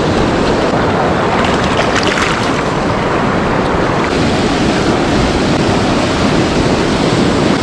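Swift, high creek water rushing steadily, loud and close.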